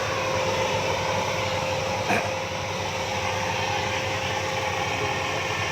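A paddy machine's engine running steadily, with a constant whine over it and one short click about two seconds in.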